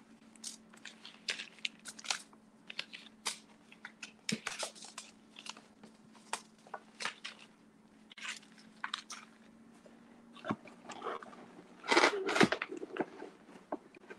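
Paper seed packets rustling and crinkling as they are handled and slipped back into a cardboard box: scattered short crackles throughout, with a louder flurry about twelve seconds in. A faint steady hum runs underneath.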